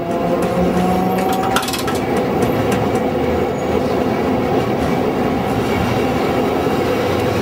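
Old-style electric tram in Dalian running along its rails: a steady rumble of wheels on track with a faint whine, and a sharp click about one and a half seconds in.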